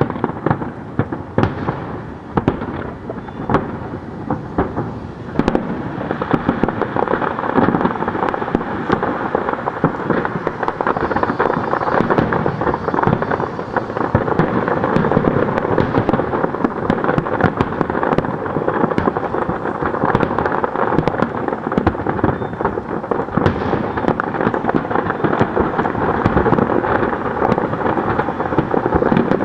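Fireworks display: aerial shells bursting in a rapid, continuous barrage of booms and crackles, growing denser and louder about five seconds in.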